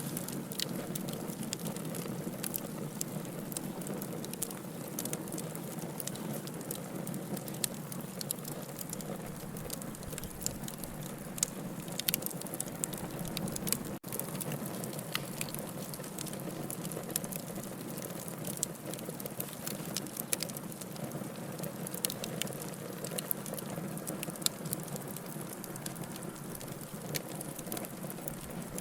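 Wood fire in a fireplace crackling and popping: a steady low rush of flame with many sharp, irregular pops and snaps. The sound drops out for an instant about halfway through.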